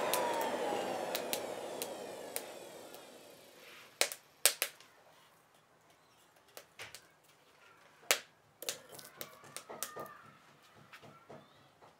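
The forge's electric air blower winds down after being switched off, its whine falling in pitch and its rush fading over the first few seconds. Then come scattered sharp metallic clicks and knocks as tongs go into the forge and the hot blade is drawn out and laid on the slab.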